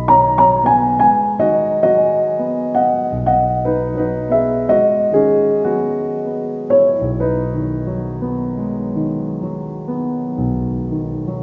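Background piano music: a melody of single struck notes over deep bass notes that change every few seconds.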